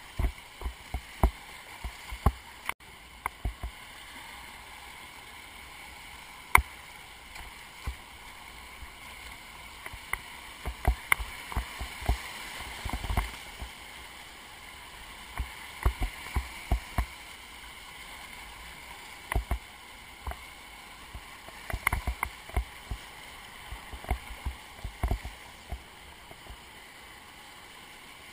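Whitewater rapids rushing past a kayak, with frequent irregular sharp splashes and knocks as water and paddle strike the boat. The rush swells in the middle as the kayak goes through the biggest waves.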